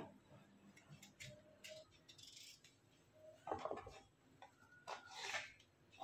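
Faint, short scrapes and knocks of a kitchen knife working a peeled vegetable on a plastic cutting board, the loudest about three and a half seconds in and again about five seconds in.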